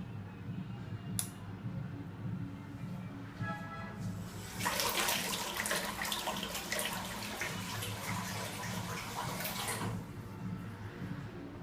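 Water rushing out of the outlet of a DC50E-24150S micro brushless DC pump, starting about four and a half seconds in and stopping sharply about five seconds later. A short click comes about a second in.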